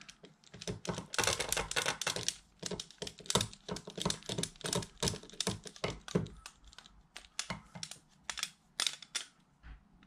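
Hex driver clicking and scraping in the blue aluminium hub carrier of an RC car as the lower play-adjusting pivot screw is turned in. Rapid irregular small clicks, thick and loudest over the first six seconds, then sparser and fainter.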